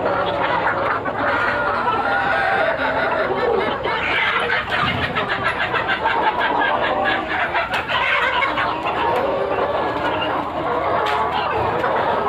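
A flock of country chickens, hens and roosters together, clucking and calling over one another in a steady, dense chatter.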